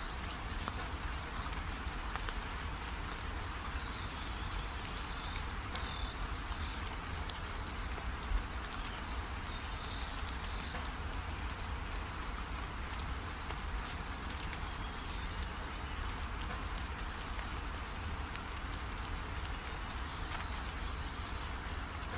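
Small indoor tabletop fountain running: water trickling steadily off a cement disc into a bowl of pebbles, a soft even splashing.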